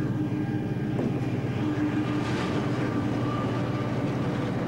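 Diesel locomotive passing close by, its engine running with a steady low drone.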